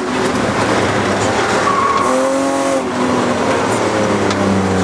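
In-car sound of a BMW E36 rally car driven hard, its engine running at high revs under loud tyre and road noise as it takes the bends. The engine note rises and falls once about halfway through.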